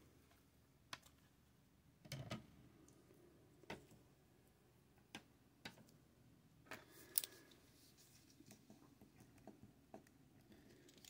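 Near silence broken by a scattering of faint clicks and taps from hard plastic graded-card slabs being handled and set down, and from a pen writing on a paper sheet. The sharpest click comes about seven seconds in.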